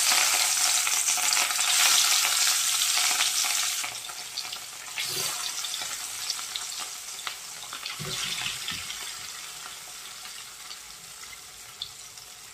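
Marinated fish pieces sizzling as they are laid into hot oil in a kadai. The sizzle is loud for about four seconds, then settles to a quieter frying hiss, with two dull knocks in between.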